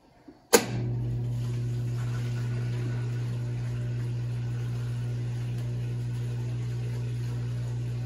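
Brastemp Baby BLK20 washing machine's drain pump switching on with a sharp click about half a second in, then running with a steady low hum as the wash water is pumped out.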